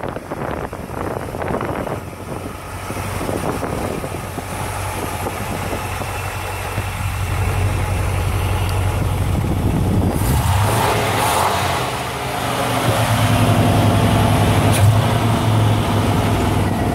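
1964 Lincoln Continental's V8 engine running at idle, heard from the open engine bay with a steady low hum. It gets louder about ten seconds in.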